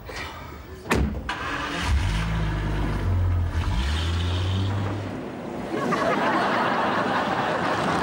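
Jaguar saloon car: the bonnet is shut with a sharp slam about a second in, followed by a smaller knock. The engine starts about two seconds in and idles with a steady low note, then the car pulls away from about six seconds, the engine and tyre noise growing louder.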